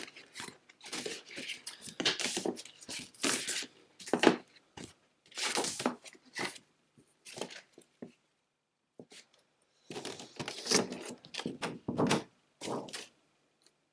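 Thick cardboard game boards and box contents being handled: irregular rustles and soft knocks, with a pause of about two seconds near the middle.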